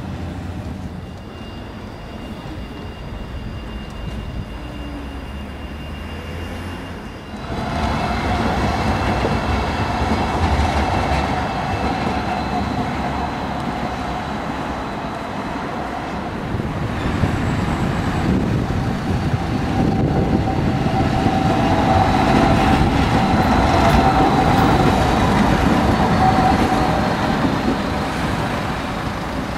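Trams running on street track: the rumble of steel wheels on the rails, getting louder about seven seconds in, with a steady high whine over it that is strongest in the last third.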